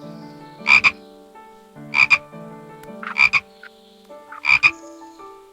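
Frog croaking four times about a second apart, each croak a quick double call.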